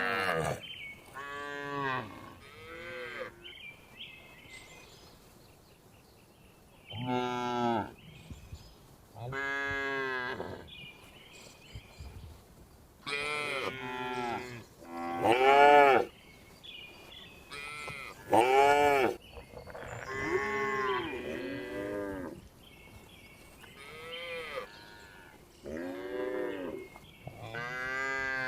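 Cattle mooing repeatedly: about a dozen calls, each rising and falling in pitch, with short pauses between them.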